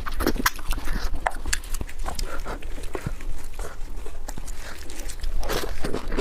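Close-miked eating: chewing and mouth noises, an irregular run of short wet clicks and smacks, with a longer, noisier smack or slurp near the end.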